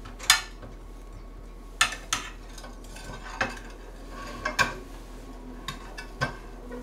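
Irregular clinks and light knocks of kitchen utensils against a dish, about eight in all, as a frozen pork cutlet is coated in oil.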